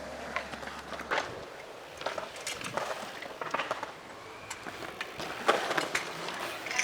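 Wheels rolling over skatepark concrete, with scattered clacks and scrapes.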